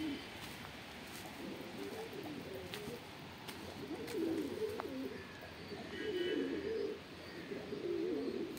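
Domestic pigeons cooing, low rolling coos repeating every second or two.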